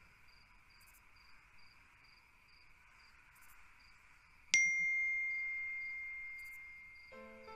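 A single bright chat-message notification ding about four and a half seconds in, ringing and fading away over a few seconds. Beneath it is a faint steady background with an even chirp two to three times a second, and soft background music comes in near the end.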